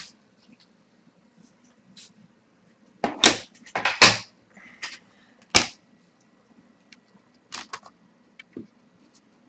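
Computer keyboard and mouse clicking in short irregular clusters, the loudest clacks about three to four seconds in and again a moment later, over a faint steady hum.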